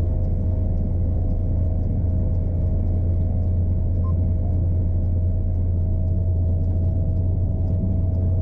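John Deere T670i combine harvester's engine running steadily while driving on the road: a constant low drone with a steady whine above it.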